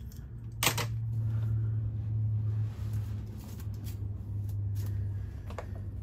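Handling sounds from styling a wig on a block: a sharp click about a second in, then a few light clicks as the hair is sectioned and combed, over a steady low hum.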